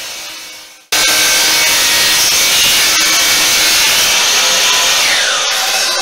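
DeWalt sliding compound miter saw coasting down, then switched on again about a second in and running at full speed, sawing firewood. Near the end its whine drops in pitch.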